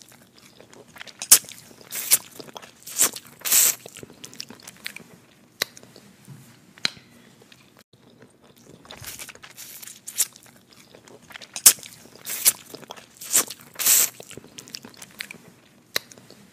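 Crab leg shells being cracked and snapped apart by hand, with chewing of the meat: irregular sharp crunches, bunched in two spells with a quieter stretch between.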